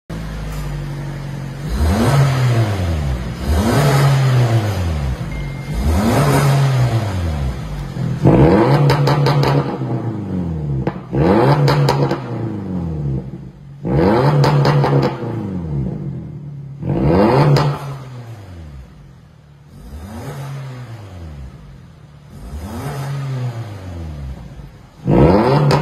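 Perodua Myvi engine revved repeatedly in short blips through an aftermarket stainless 4-1 extractor and cat-back exhaust with a valvetronic muffler, about ten revs each rising and falling. The revs are louder with the muffler valve open and quieter with it closed, and a loud rev comes again near the end.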